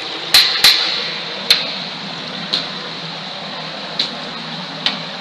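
Stream water running through a concrete culvert pipe, a steady echoing hiss. About six sharp knocks ring out inside the pipe at uneven intervals; the two loudest come close together in the first second.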